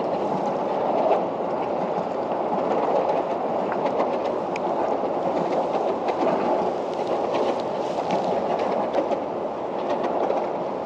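Steady rumble of road traffic crossing the bridge overhead, with a few light clicks from handling the fishing reel and line.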